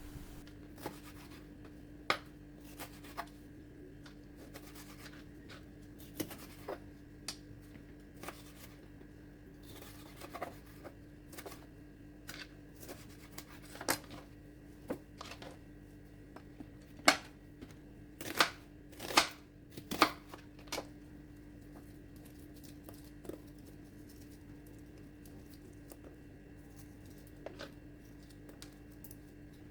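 Knife cutting vegetables into chunks on a cutting board: irregular, spaced-out knocks of the blade against the board, with a few louder ones close together about two-thirds of the way through. A faint steady hum sits underneath.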